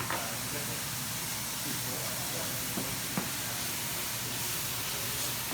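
Mushrooms sizzling steadily as they fry, with two light clicks near the middle.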